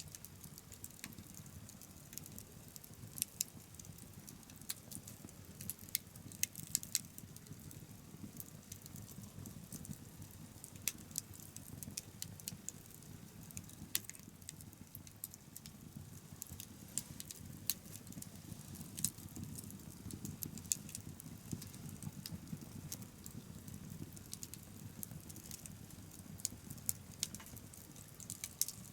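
Wood bonfire crackling: irregular sharp pops and snaps, some louder than others, over a low steady background rush.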